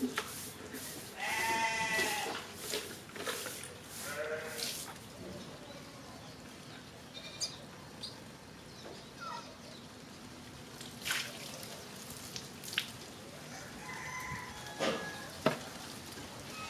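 A goat bleating several times in the first five seconds, one long wavering call about a second in, followed by a few scattered sharp clicks and knocks.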